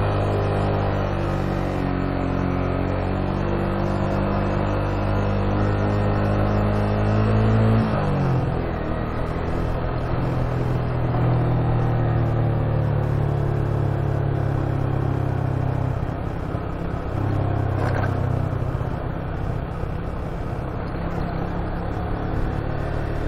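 Motorcycle engine running under way on the road. It holds a steady note, drops sharply in pitch about eight seconds in, then runs steadily again.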